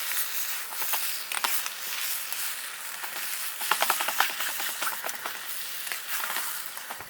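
Food sizzling in a pan over a wood fire: a steady hiss with scattered crackles and pops.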